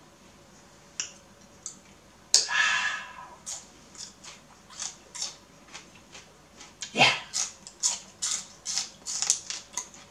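Raw celery being torn and bitten, then chewed with a run of crisp crunches: a loud crack about two seconds in, a big crunch about seven seconds in, and quick crunches, several a second, toward the end.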